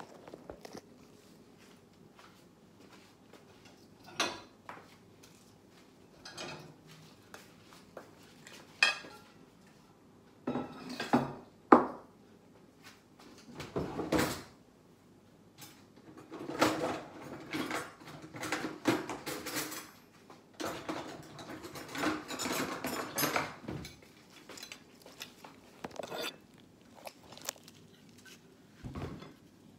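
Plates, bowls, glasses and cutlery clinking and knocking now and then as a dinner table is set, with short bursts of clatter between quiet gaps and one sharp knock about twelve seconds in.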